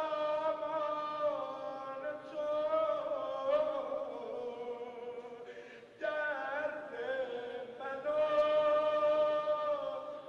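A voice singing a slow devotional chant of longing, with long held notes that waver and bend in pitch. The chant breaks briefly about six seconds in, then goes on.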